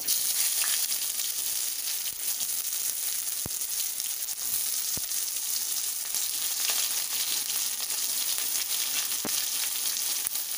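Chopped onion frying in hot oil in a kadai with tempered whole spices: a steady hiss that starts suddenly as the onion goes in, with a few faint clicks.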